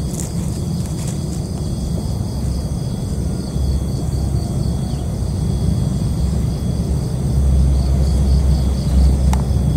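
Insects chirping in a fast, evenly pulsing high tone over a steady low rumble that swells for a couple of seconds near the end.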